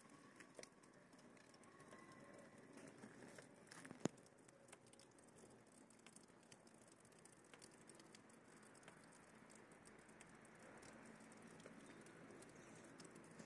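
Near silence: faint outdoor background with a few small ticks and one sharp click about four seconds in.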